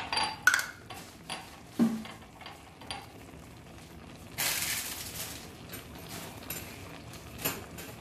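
Thick carrot halwa simmering in an iron kadhai: scattered pops and low plops as large bubbles burst in the reducing mixture, with a brief hiss about four and a half seconds in.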